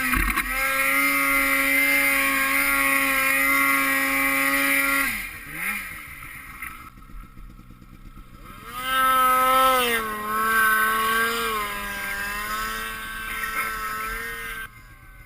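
Snowmobile engine running at high, steady revs, then easing off about five seconds in. It revs back up a few seconds later, holds with slight rises and dips, and drops off sharply near the end.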